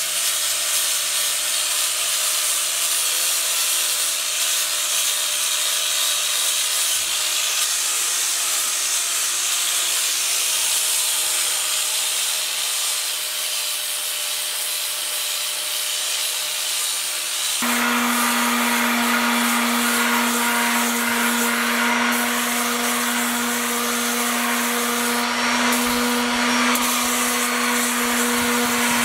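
Small grinder running steadily against cured fiberglass and epoxy on a boat transom, knocking down the big lumps of the seam repair. About two-thirds of the way through it gives way abruptly to a corded random-orbit sander with a steady, even hum, sanding the patch flush.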